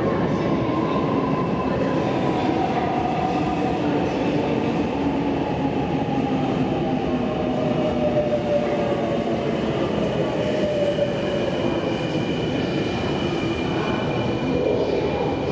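Electric commuter train running along a platform track. Steady rumble of wheels on rail sits under its motors' whine, which falls slowly in pitch as the train slows.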